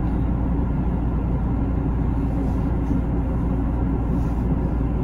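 Steady low rumble running evenly throughout, with no distinct knocks or tones.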